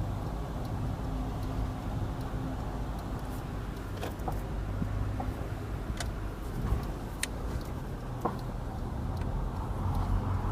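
Subaru Impreza WRX STI's turbocharged flat-four running steadily, with several sharp metallic knocks from the right front suspension, the first about four seconds in, as the steering is turned right and back. The knocks come from a failed bearing in the right front strut upper mount, as the dealer diagnosed.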